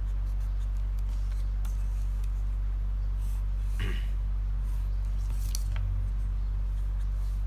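Pen scratching on paper in a few short strokes, drawing straight lines along a ruler, over a steady low hum.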